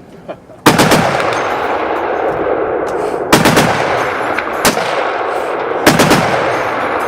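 Rapid gunfire from several guns at once, starting suddenly under a second in and running on as a dense, near-continuous stream of shots, with heavier volleys every second or so.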